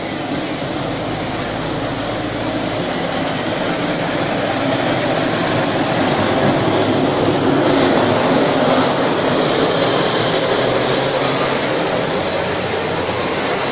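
A towed line of gravity carts (goitiberas) rolling past on asphalt: a steady rumble that grows louder about halfway through, then eases off.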